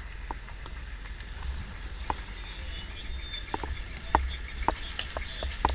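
Irregular knocks and clunks of boots and kit against the armoured roof and hatch of a Humvee as men move about on it and climb down, over a low steady rumble.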